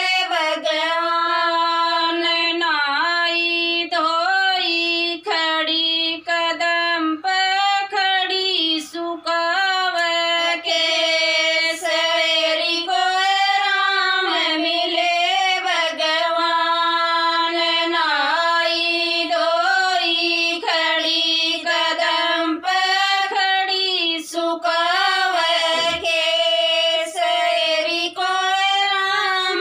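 Women's voices singing a Haryanvi folk bhajan together in unison, a continuous melodic line with only brief pauses for breath.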